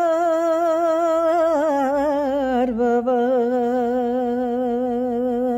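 A woman singing a Bulgarian folk song unaccompanied, drawing out one long note with vibrato; the pitch steps down about halfway through.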